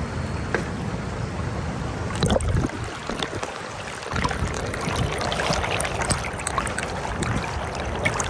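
Shallow rocky river rushing over stones, with scattered splashes and small knocks, louder for a moment a little over two seconds in.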